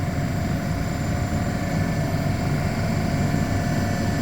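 Nardi CNG 2.8 compressor running steadily at its first startup, with an even low hum and a steady whine, while building pressure toward its 3600 stop setting. It runs very quietly.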